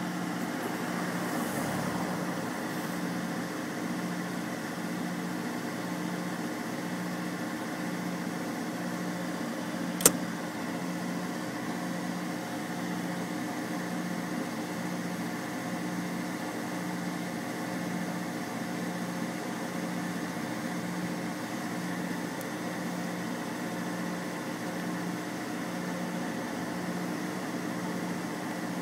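Idling truck engine: a steady hum with a low throb about once a second. A single sharp click about ten seconds in.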